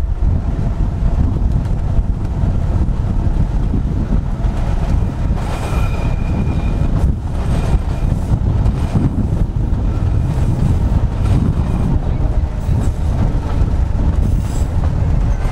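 Snaefell Mountain Railway electric tramcar running along its track, heard from an open side window: a steady low rumble of wheels on rail with wind on the microphone. The wheels give a brief high squeal about six seconds in, as on a curve, and a fainter one near the end.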